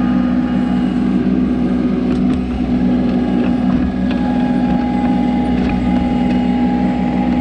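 Kubota B2650 compact tractor's diesel engine running steadily, with a faint higher steady tone joining about halfway through.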